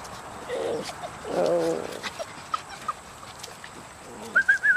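Dutch Shepherd puppies playing, giving short yappy calls about half a second and a second and a half in, with a few small clicks, then a high, wavering whine near the end.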